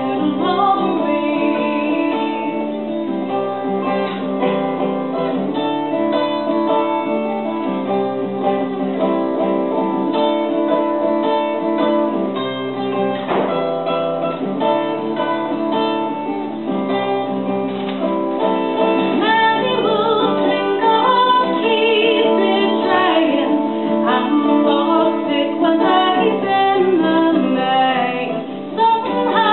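A woman sings a traditional-style folk song, accompanying herself on acoustic guitar, performed live.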